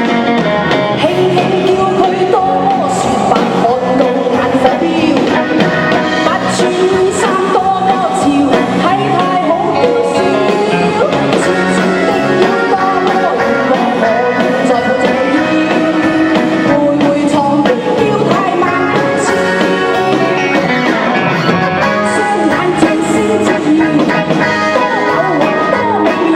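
A live pop song with a singer over band backing of guitar and drums, playing steadily.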